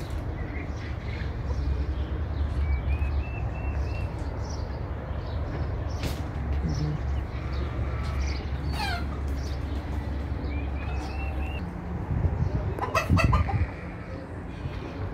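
Domestic chickens and birds calling in a farmyard: short repeated high chirping calls now and then, and one louder squawk-like call about thirteen seconds in, over a steady low rumble.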